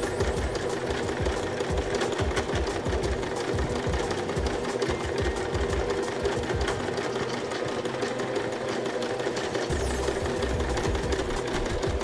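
Electric domestic sewing machine stitching steadily, with rapid, even needle strokes over its motor hum. It is running a zigzag stitch over the seam edge to finish it so the seam lasts.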